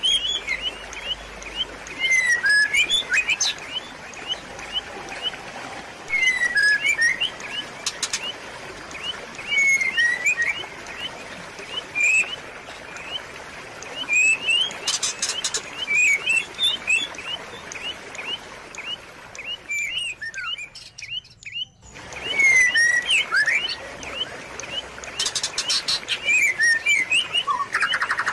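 Trickling water with small birds chirping in short bursts of quick rising notes, repeating about every two seconds. About two-thirds of the way through, the water and birds drop out for roughly two seconds, then return.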